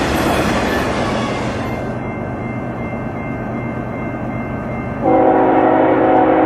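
A passing freight train's wheel and rail noise, thinning out after a couple of seconds. About five seconds in, a locomotive's multi-chime air horn sounds a loud, steady chord of several notes.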